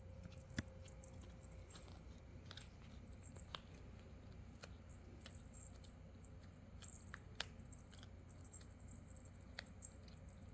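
Dachshund puppy chewing on a fabric flip-flop strap: faint, scattered clicks and snaps of teeth on the strap, the sharpest about half a second in and a few more spread through, over a low steady hum.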